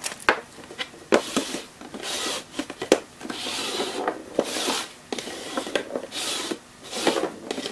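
Upturned plastic cups being slid and shuffled across a hard board: a run of short scraping rubs, with sharp clicks and knocks as cups are picked up and set down.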